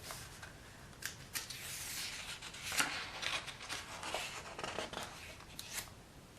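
Faint rustling and small clicks of paper: a picture book's pages being handled and turned.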